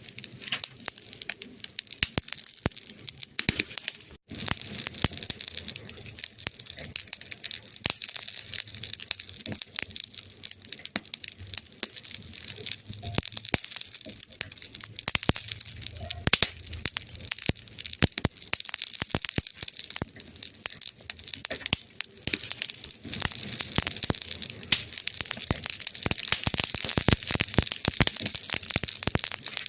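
Wood campfire crackling, with dense irregular pops and snaps over a steady hiss and a brief dip in level about four seconds in.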